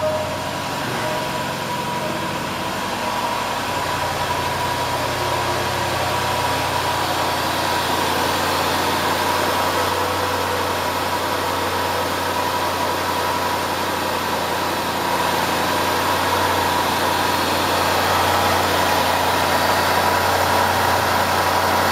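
A 5.0-litre supercharged AJ133 V8 in a 2011 Range Rover Supercharged idling steadily, with the normal ticking of its direct fuel injectors and no real rattling or loud ticking: a healthy engine, without timing chain tensioner rattle or a failing supercharger pulley coupler.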